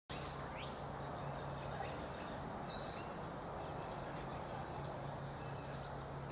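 Outdoor ambience: a steady low hum and background noise, with faint, short, high bird chirps scattered throughout.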